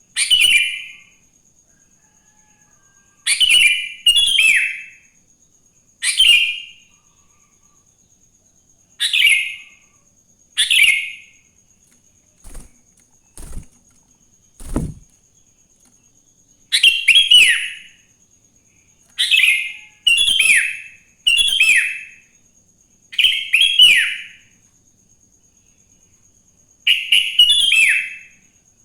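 Sooty-headed bulbul (kutilang) singing: short, loud bubbly phrases of quick falling whistled notes, repeated every one to three seconds, busier in the second half. A few soft thumps in the middle.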